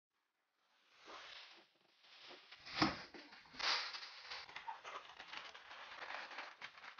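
Plastic snack bags crinkling and rustling as they are pulled out of a cardboard box, starting about a second in, with a thump about three seconds in.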